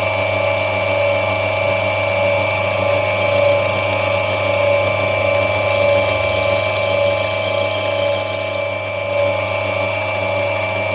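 Lapidary grinding wheel running steadily, its motor holding a constant whine. From about halfway in, a loud hiss of opal being ground on the wheel lasts about three seconds, then drops back to the motor alone.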